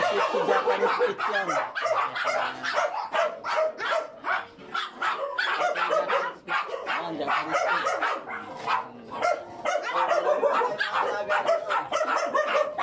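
Many caged dogs barking and yapping at once in a crowded kennel: a dense, unbroken chorus of overlapping barks.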